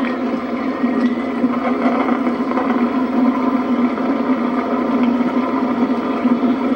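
Boat engine running steadily at low speed, a constant even drone.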